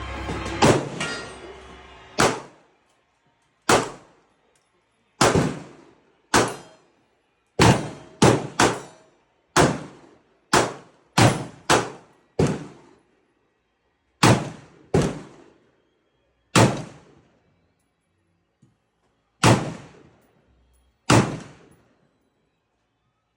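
Gunshots at a shooting range: about eighteen single shots at irregular intervals, each a sharp crack with a short echoing tail. Music fades out in the first second.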